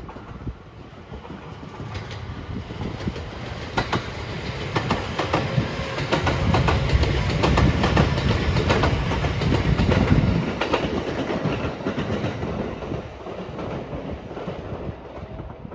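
JR West 227 series 'Urara' electric train passing close by: the rumble and the clatter of its wheels over the rail joints build up, are loudest as it goes past about halfway through, then fade as it pulls away.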